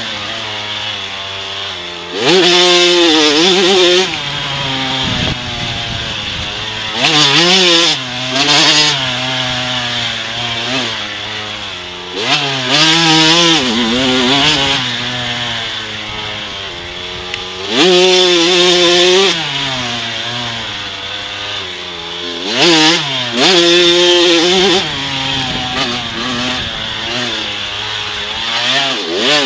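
A Kawasaki KX105 supermini's two-stroke engine, heard from the rider's helmet, revving hard and dropping back as he goes on and off the throttle through the corners. There are about seven loud throttle surges.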